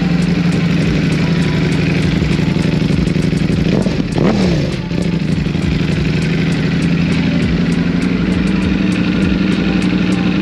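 Superbike engine idling steadily, with one quick throttle blip about four seconds in that rises and falls back to idle.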